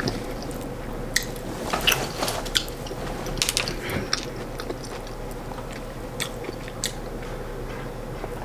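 A person chewing and biting food close to the microphone: irregular wet clicks and small crunches, busiest in the first half and sparser later, over a faint steady hum.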